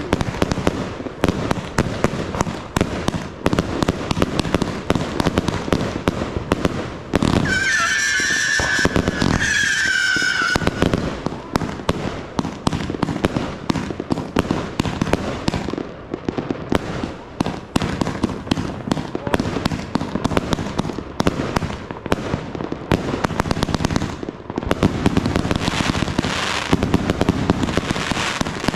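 Piggy Bomb 300 firework cake firing a rapid, continuous run of shots that pop and crackle as they burst. About seven seconds in, a high whistle sounds for about three seconds over the shots.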